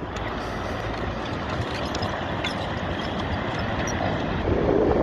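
Storm waves breaking and water rushing over a seawall: a steady rushing noise that grows heavier about four and a half seconds in.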